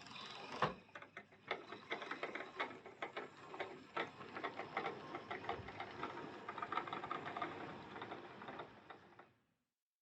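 OO gauge model 4F locomotive running along the track, pushing the unpowered Lima Class 31: a small electric motor and gears whirring, with many irregular clicks of wheels over rail joints. It stops about nine seconds in.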